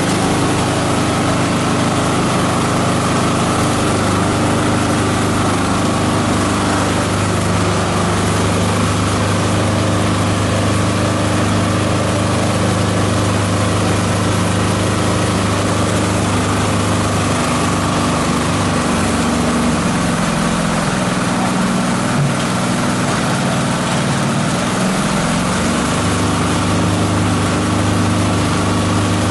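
Esteban 9-in-1 multi-purpose chopper/shredder running steadily while chopping green plant material, a loud hum with a whirring rush over it. Past the middle its note drops and wavers for several seconds, then steadies again.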